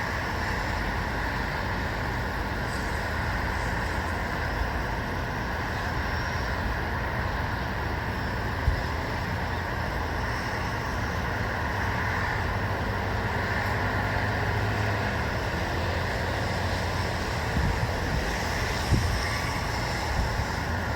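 Steady outdoor background hum of distant road traffic, with wind buffeting the microphone near the end and a brief click about nine seconds in.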